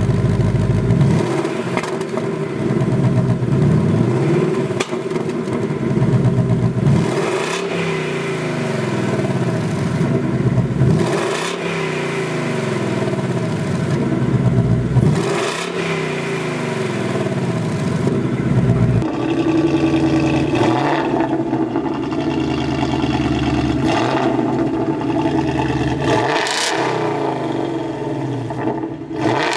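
Supercharged Ford Coyote 5.0 V8 of a Mustang GT running through a new Magnaflow X-mod cat-back exhaust on its loudest, fully open setting, with a deep note: revved up and down several times, then settling into a steadier run about two-thirds of the way in.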